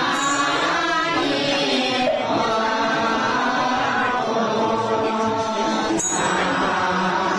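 Buddhist devotional chant: voices singing slow, long-held notes with musical accompaniment.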